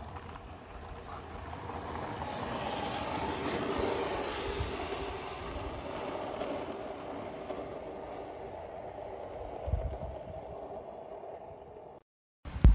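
Steady wash of background noise in a large, echoing indoor hall, swelling slightly over the first few seconds, with a dull low thump about ten seconds in.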